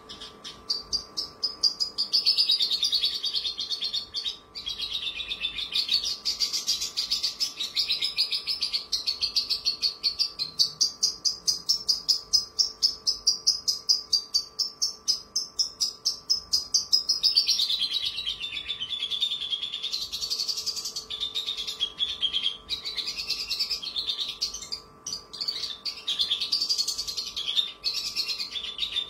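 Javan bush lark (branjangan) singing a long, unbroken song of high chirping notes that wander up and down in pitch, with a run of fast, evenly repeated notes lasting several seconds in the middle.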